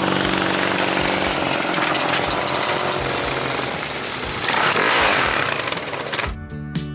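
Sidecar motorcycle engine running loud and rasping as the outfit rides past close by, its pitch shifting as it passes about five seconds in. Music with guitar cuts in near the end.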